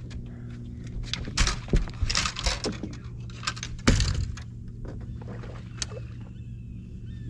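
Knocks and clatter of fishing gear being handled on the deck of a bass boat, the loudest a heavy knock about four seconds in, over a steady low hum.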